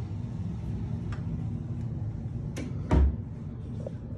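A closet door swung shut, a light click then a solid thump about three seconds in, over a steady low hum.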